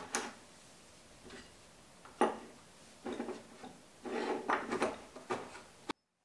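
Wooden knocks and clunks as a loose board and a wooden peg are handled and set down on a wooden workbench top: about half a dozen separate knocks, the sharpest about two seconds in and a quick cluster about four seconds in. The sound cuts off suddenly near the end.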